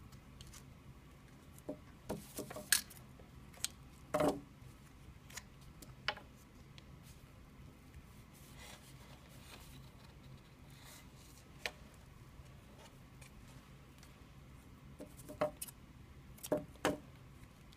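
Handling of electrical tape on a wooden arrow shaft: scattered soft clicks and rustles as the tape is wrapped, with a cluster of sharper clicks near the end as scissors cut the tape.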